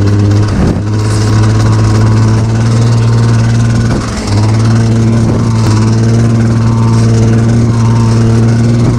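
Yamaha Enticer snowmobile's two-stroke engine running off choke at a steady pitch, with a short dip about four seconds in.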